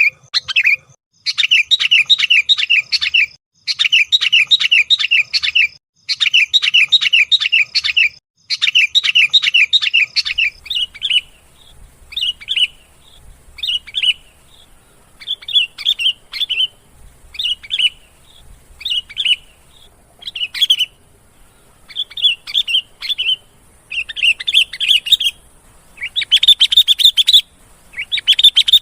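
Sooty-headed bulbul (kutilang) calls from a bird-lure recording. For the first ten seconds the bird gives rapid chattering phrases about two seconds long with short gaps between them. After that it gives separate short chirps about once a second, which grow denser again near the end.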